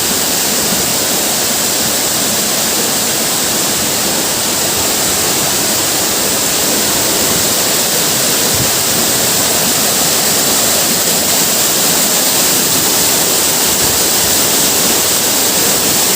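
A tall waterfall plunging from high up, a loud, steady rushing of falling water.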